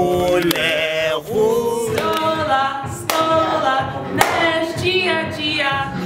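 A few voices singing together unaccompanied, holding wavering notes, with some hand claps.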